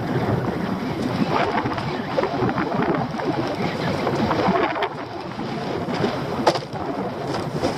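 Wind buffeting the microphone over water lapping against a small open boat, with a couple of sharp knocks in the second half as lobster pots are handled.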